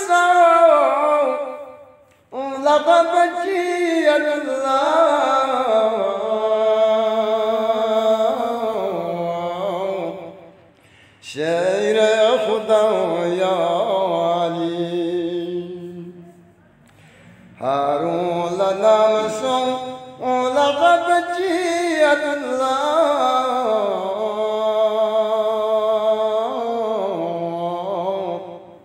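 A man chanting a Balti qasida unaccompanied, in long drawn-out phrases whose pitch slides up and down, broken by three short pauses for breath.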